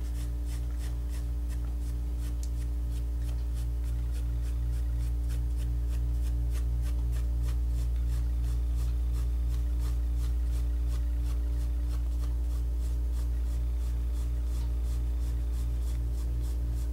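Pencil shading on drawing paper in quick, even back-and-forth strokes, about three to four a second, over a steady low hum.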